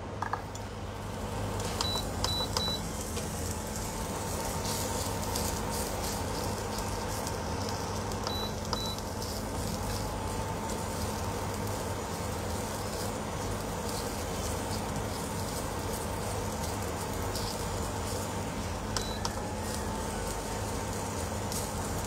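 Asparagus sizzling and crackling in a pan over high heat as it toasts. There is a steady hum under it, and short electronic beeps come a few times: three about two seconds in, two more around eight seconds, and one near the end.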